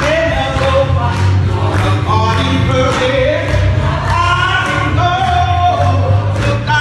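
Gospel choir singing with instrumental backing, a steady bass and beat beneath the voices.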